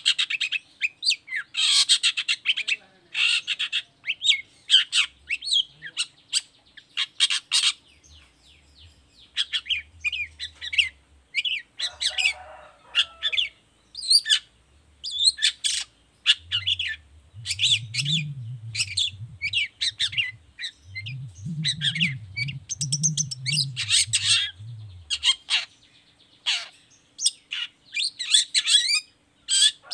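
Long-tailed shrike (cendet) singing a fast, chattering song of short, sharp, varied notes in quick runs with brief gaps. A separate low sound runs underneath for several seconds in the second half.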